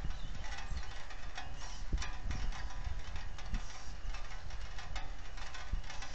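Rain falling on the osprey nest camera and its microphone: many irregular ticks and taps over a steady low rumble.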